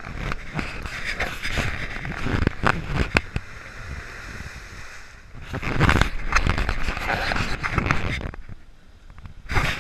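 Suzuki Samurai off-roader ploughing through a deep muddy puddle, water and mud splashing around it as its engine pulls. The sound is loudest a little past halfway as it passes close, and drops away briefly near the end.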